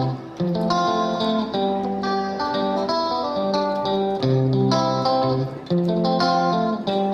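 Background music: a plucked guitar playing a melody.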